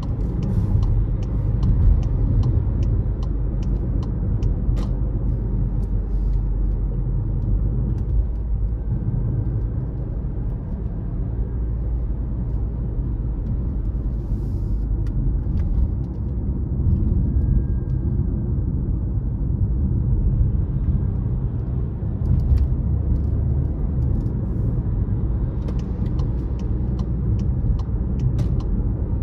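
Steady low rumble of a car driving along a mountain road, engine and tyre noise, with scattered faint clicks in the first few seconds and again near the end.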